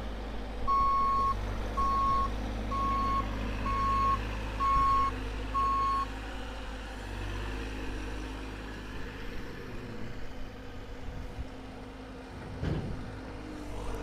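Bobcat E42 compact excavator travelling on its tracks, its travel alarm beeping six times at about one beep a second and then stopping, over the steady low run of its diesel engine.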